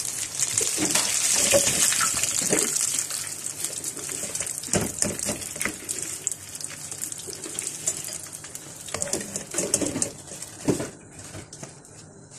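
Batter-coated green chilli pakoras deep-frying in hot oil: a crackling sizzle, loudest at first and easing off after a few seconds. A few metal knocks come from the strainer and slotted spoon against the pan as the pakoras are lifted out.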